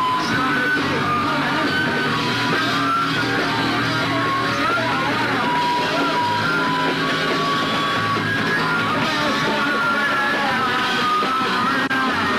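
Punk rock music with guitar and yelled singing, loud and continuous.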